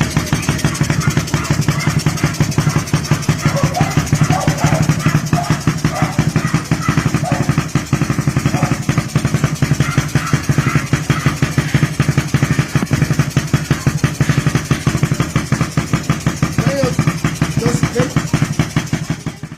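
Suzuki Raider R150 motorcycle engine running steadily at idle, its exhaust pulsing rapidly and evenly.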